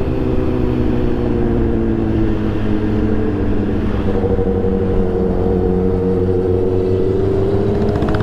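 Kawasaki ZX-6R inline-four engine running at a steady low cruise under the rider, with wind and road noise; its pitch dips slightly, then rises a little about four seconds in.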